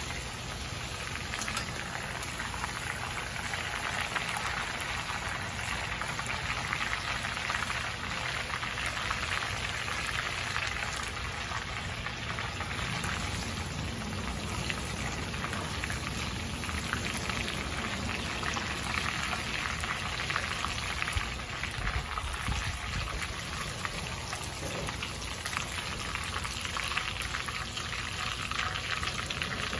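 Hot oil sizzling and crackling steadily in a cast iron Mystery Pot as potato slices, jalapeños, bell pepper and onion fry.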